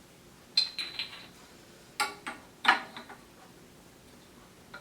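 Metal tiller parts clinking and knocking as they are handled and fitted together: about four sharp clinks with a brief ring, the loudest near the three-second mark.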